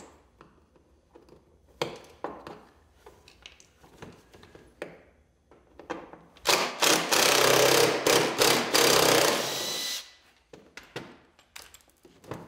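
Power drill with a Torx bit backing a screw out of a snowmobile's plastic side panel: a couple of short bursts about six seconds in, then running steadily for about three seconds before it stops. Light clicks and knocks of the bit and hands on the plastic panel come before and after.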